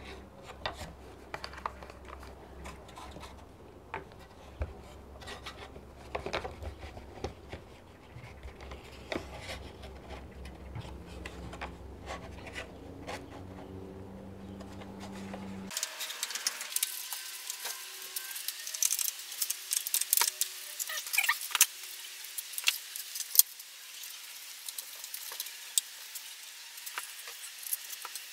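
Clicks and light clatter of woodworking clamps being set on a wooden cabinet door: a one-handed bar clamp ratcheted tight, then steel screw clamps put on over wooden strips. A low background rumble cuts off about halfway through.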